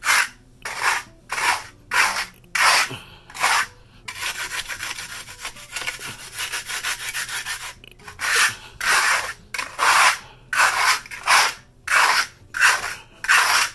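An old trowel scraping across a freshly patched concrete floor to knock down high spots. It goes in rhythmic back-and-forth strokes, about one and a half a second, with a few seconds of fast continuous scraping partway through.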